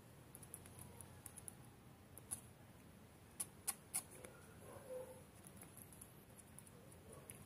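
Faint, sharp clicks of a small dog's claws on stone paving slabs as it paws at a caterpillar, the three loudest coming in quick succession about halfway through.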